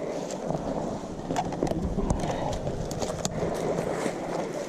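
Steady rustling and scraping with many irregular sharp clicks and knocks, like a person moving on foot through brush carrying gear.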